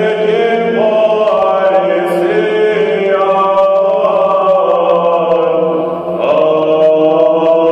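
Greek Orthodox Byzantine chant sung unaccompanied: a steady held drone note (the ison) under a melody that moves in long sustained notes. There is a brief break about six seconds in, then a new phrase begins.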